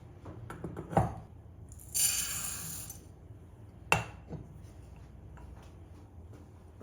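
Kitchen handling sounds of dishes and utensils: a knock about a second in, a hiss or rustle lasting about a second, then a sharp clink and a lighter tap.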